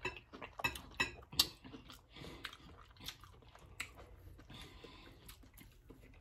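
Close-miked chewing of food by two people: soft, irregular crunches and wet mouth clicks.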